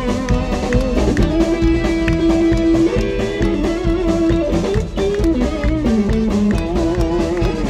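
Live band playing an instrumental passage: button accordion with electric guitar, bass guitar and drum kit, a melody line holding one note for a moment before moving on.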